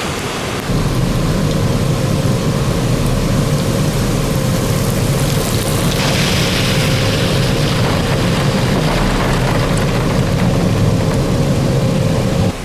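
Storm wind buffeting the microphone, with rain and a faint steady hum underneath. It starts abruptly just under a second in and cuts off near the end.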